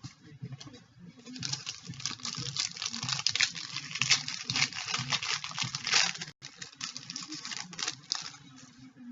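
Crinkling and tearing of a trading-card pack wrapper being handled, a dense run of crackles that starts about a second in and stops near the end, broken once briefly just past six seconds.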